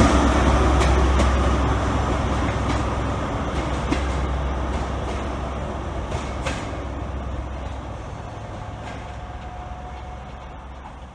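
Class 43 HST power car's diesel engine running as the train pulls away: a steady low drone that fades, with a few sharp clicks of wheels over rail joints.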